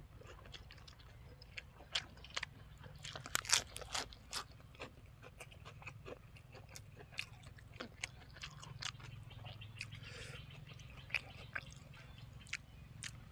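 A person chewing food close to the microphone, with irregular crisp crunches and wet clicks, loudest about three and a half seconds in.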